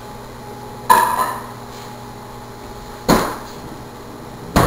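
Three sharp knocks of kitchen work. The first, about a second in, is a clank with a short ring like a pot, lid or dish being set down. The two duller bangs a few seconds later are like cabinet doors or dishes being knocked shut or put down.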